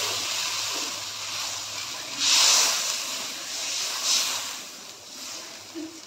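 Water sizzling and hissing as it hits hot oil and fried spices in an aluminium kadai. The hiss slowly dies down, with louder surges about two seconds in and again about four seconds in as the mixture is stirred with a spatula.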